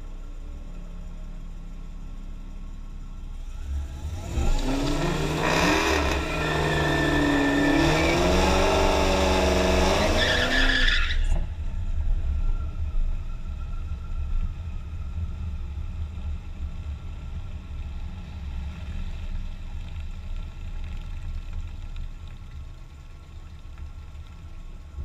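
A Dodge Charger Scat Pack's V8 revving through a burnout alongside, tyres squealing, the engine note rising and falling for about seven seconds before cutting off sharply. Before and after it, a V8 idling close by, the supercharged Challenger R/T that carries the microphone.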